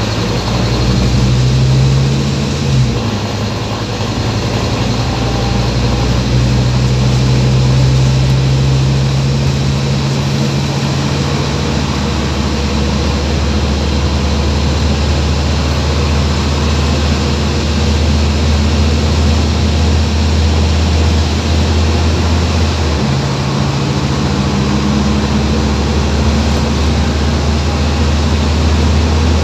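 Scania OmniCity single-deck bus heard from inside the passenger saloon: a steady low diesel engine hum with general ride noise, its pitch shifting about 3 seconds in and again about 23 seconds in.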